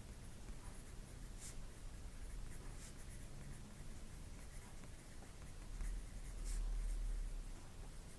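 Pen writing on paper: faint, brief scratching strokes, with a low rumble about six seconds in.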